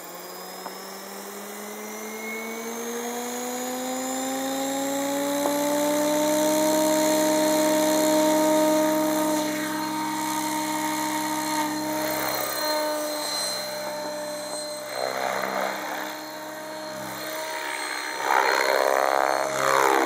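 Compass 7HV electric RC helicopter spooling up: a whine that rises in pitch over the first six seconds as the rotor comes up to speed, then holds steady as it lifts off. Later the rotor noise swells and pulses in whooshes as the helicopter manoeuvres in the air.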